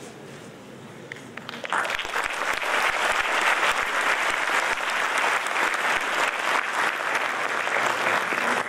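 An audience applauding. The clapping starts about two seconds in, after a quieter moment, and holds steady.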